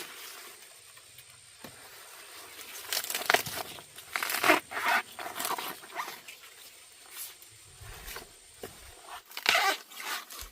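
Intermittent rustling and crackling in short, irregular bursts, with quieter stretches between them.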